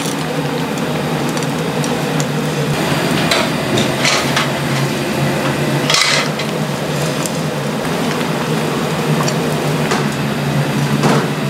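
Gas grill burners and kitchen ventilation running with a steady rushing hum, while metal tongs clink and scrape against the metal braising trays a few times, the longest scrape about six seconds in.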